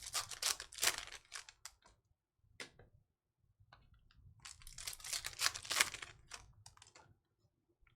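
Topps Chrome baseball cards being flipped through and handled: two spells of rapid clicks and rustles, one at the start and one from about halfway to near the end, with a short pause between.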